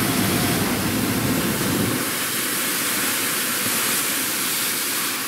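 Hot air balloon's propane burner firing with a steady roar. The low rumble drops away about two seconds in, leaving a steady hiss.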